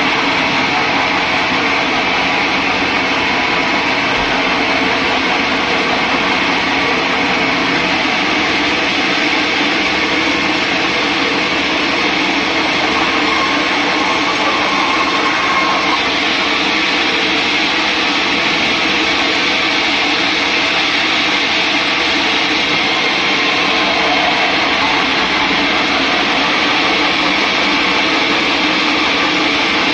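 Sawmill saw running steadily without a break, a dense mechanical noise with faint steady tones, as when sawing a large mahogany log.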